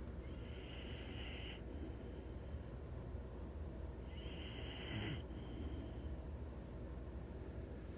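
Sleeping puppies snoring: two hissy breaths about four seconds apart, each followed by a shorter one, over a low steady hum.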